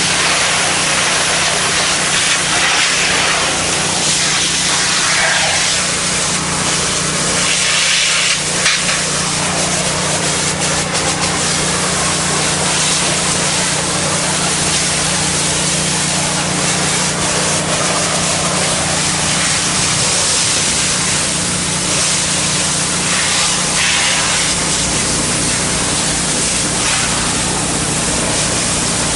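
Pressure washer spray through a black low-pressure nozzle tip hissing steadily against ceramic tile, rising and falling in brightness as the wand moves, with a steady low hum underneath.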